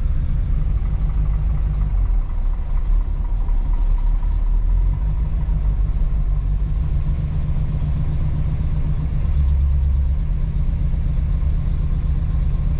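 Old classic car's eight-cylinder engine running at idle, heard from inside the cabin, with a deep, full sound that swells a little at times.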